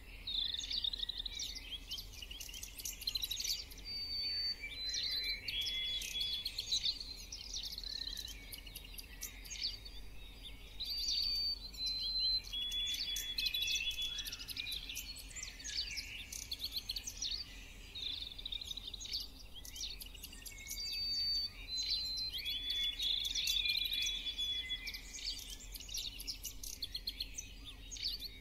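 Birds chirping and singing, with one phrase of three steady whistles, each a step lower than the last, coming back about every ten seconds.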